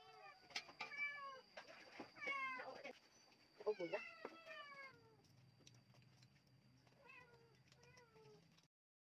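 A domestic cat meowing repeatedly: a string of short meows with falling pitch, most of them in the first half, then two fainter ones near the end.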